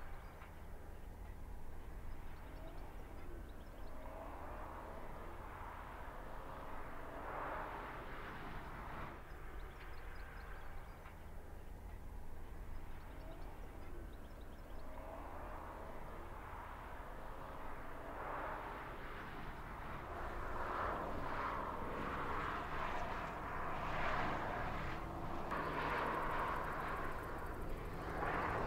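Steady engine hum and rushing noise from a passing vehicle, growing louder over the last several seconds.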